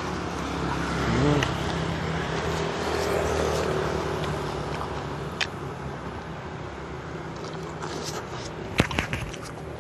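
Street traffic: vehicle engines running and passing on the road beside the stall, a steady low hum that swells a little midway. A few sharp clicks near the end are the loudest sounds.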